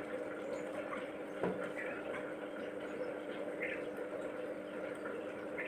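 Drain-cleaning liquid being poured from a bottle onto a jammed blender jar's blade assembly, faint trickling with a small knock about a second and a half in, over a steady hum.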